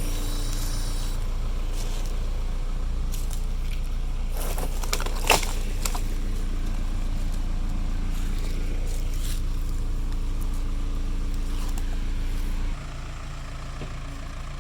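Case 580E backhoe's diesel engine running steadily at working throttle, with a short cluster of knocks and scrapes a third of the way in, the loudest a single sharp knock. Near the end the engine drops back to a lower, quieter speed.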